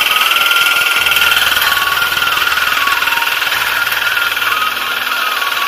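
Reaper binder's diesel engine running steadily as the machine cuts wheat, its cutting and binding gear working.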